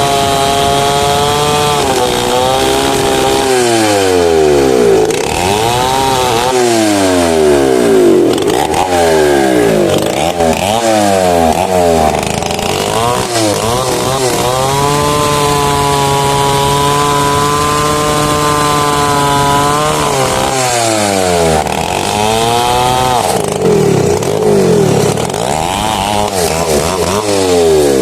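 Chainsaw cutting mahogany, the engine pitch swinging down and back up again and again as it bogs under load and revs free. About midway it holds a steady high pitch for around five seconds, then the rises and falls return.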